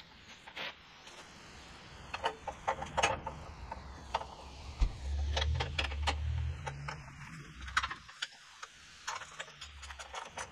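Ratchet wrench clicking in short runs, with scattered knocks of metal parts, as bolts are worked on a riding mower. A low rumble swells and fades in the middle.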